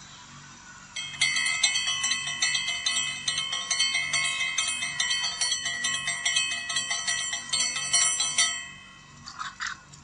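Chimes ringing: many bright, overlapping metallic tones struck in quick succession, starting about a second in and cutting off abruptly near the end.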